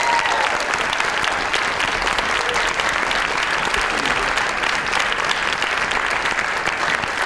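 Audience applauding steadily, with a few cheering whoops near the start.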